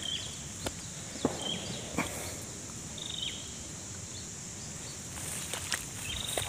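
Steady high-pitched insect drone with short chirping calls repeating every second or so, and a few sharp clicks and rustles of footsteps in grass.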